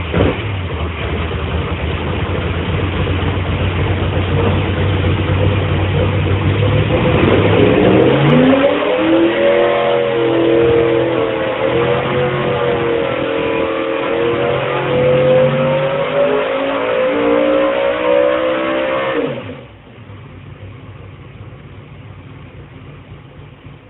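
Car engine running at low revs, then revving up about eight seconds in and holding high revs, the pitch wavering, for about ten seconds before dropping off suddenly near the end, leaving a much quieter engine sound.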